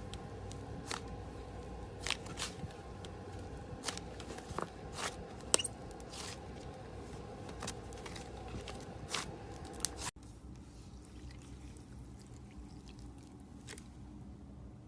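Slime being squeezed and pressed by hand, with irregular sharp clicks and crackles from popping air pockets. About ten seconds in the sound cuts abruptly to a quieter stretch with only a soft, faint squish.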